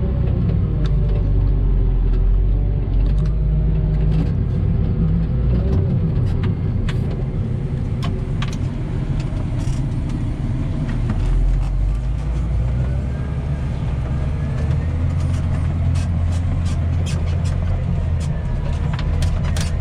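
A heavy farm machine's engine running steadily with a deep rumble, a faint whine drifting in pitch above it, and scattered clicks and rattles.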